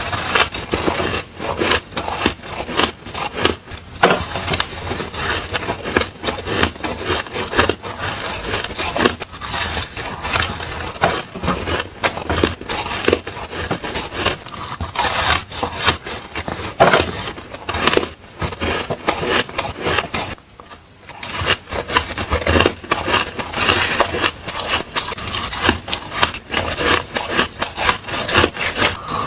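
Ice being bitten and crunched between the teeth close to the microphone: a rapid, continuous run of crisp crunches, with a short pause about two-thirds of the way through.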